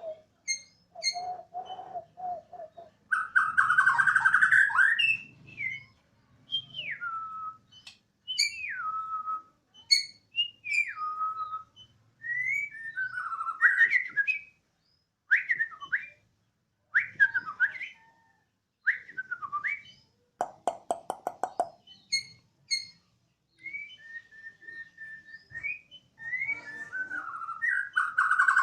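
Bornean white-rumped shama (murai batu) in full song: a long run of loud whistled phrases with sliding, siren-like notes. Harsh scratchy bursts come near the start and again at the end, and a fast rattle about two-thirds of the way through.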